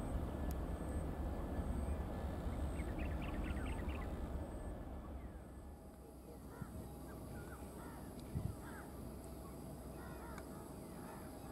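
Boeing 737-800's CFM56 jet engines climbing away after takeoff, a distant low rumble that fades out about five seconds in. Then birds calling over faint airfield hum, with one short thump near the middle.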